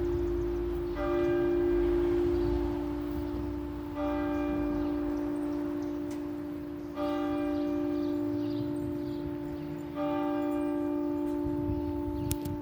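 Church bell tolling slowly: four strikes about three seconds apart, each ringing on with a steady hum that fades into the next stroke.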